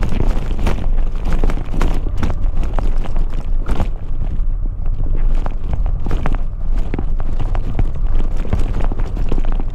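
Honda XL700V Transalp V-twin motorcycle riding over a gravel track. A steady low rumble of engine and wind runs throughout, with constant irregular clicks and knocks from stones and bumps under the tyres.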